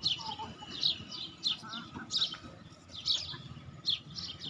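Small birds chirping in a tree: a string of short, quick downward chirps, one or two a second.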